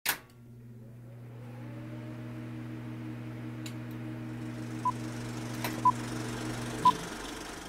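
Old-film countdown-leader sound effect: a steady hum with film hiss and scattered clicks, then three short high beeps a second apart from about five seconds in. The hum cuts off with the third beep.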